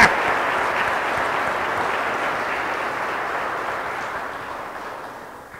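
Church congregation applauding, the applause slowly thinning and fading out near the end.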